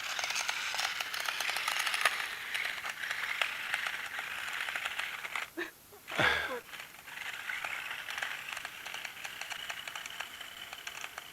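Small battery-powered RC stunt car running on a driveway: a whirring electric motor with crackly, rattling tyre noise that drops out briefly about halfway through and picks up again. A short sound falling steeply in pitch comes in just after the pause.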